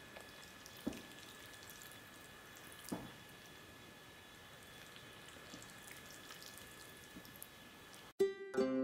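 Faint room tone with a thin, steady high whine and two soft knocks, about one second and three seconds in. Plucked-string music starts near the end.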